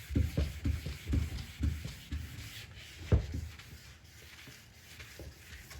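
3000-grit sandpaper rubbed back and forth over a plastic headlight lens by hand, in quick even strokes about four a second, then one louder stroke about three seconds in and fainter rubbing after.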